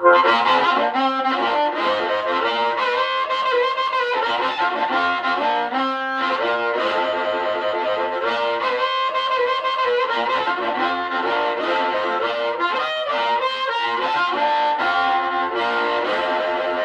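Amplified blues harmonica played through a bronze-mist Shure 520 bullet microphone with its original CR element into a Kalamazoo Model 2 tube amp turned up to about six. The notes and chords break up with overdrive and have a full bass.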